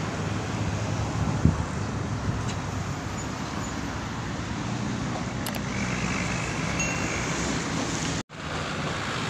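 Passing road traffic: cars and a bus driving by, a steady hum of engines and tyres. The sound drops out briefly about a second before the end.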